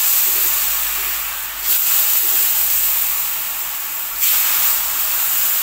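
Tofu deep-frying in hot oil in a wok, a loud steady sizzle that flares up suddenly a little under two seconds in and again about four seconds in, as more pieces go into the oil, each flare slowly dying back.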